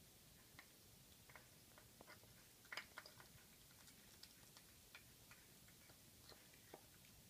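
A cat eating soft food from a plastic bowl: faint, irregular clicks and smacks of chewing and licking, busiest about three seconds in.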